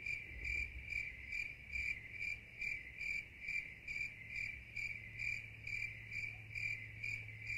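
Cricket chirping: one high chirp repeating evenly a little over twice a second. It cuts in and out abruptly as an inserted sound effect.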